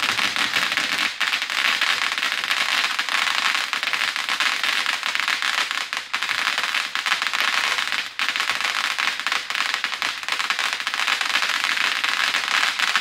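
Ground firework fountain spraying sparks, giving a dense, continuous loud crackle of rapid sharp pops.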